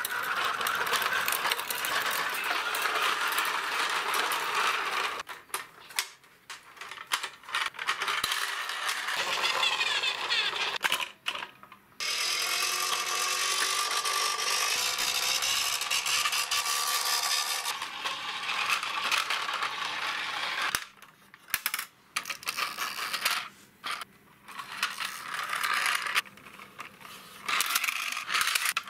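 Plastic toy trucks pushed by hand over gritty concrete: the wheels roll and crunch over grit in long stretches, broken by pauses with separate clicks and rattles as plastic toy parts, such as a tow truck's boom and a car carrier's ramp, are handled.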